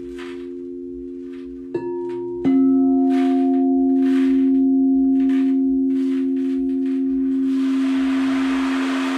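Singing bowls ringing with long sustained low tones, struck twice about two seconds in, each strike adding a fresh note that rings on. Near the end the steady rush of a flowing stream comes up under the ringing.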